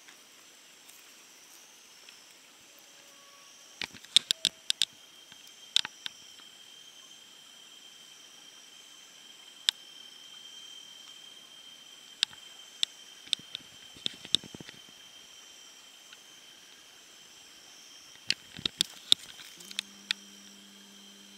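Smoky wood fire crackling, with sharp pops in irregular clusters, over a steady high-pitched drone of forest insects.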